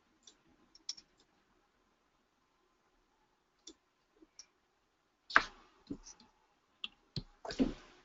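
Scattered faint clicks, then several louder knocks and a short rustle in the second half, over a faint steady hum.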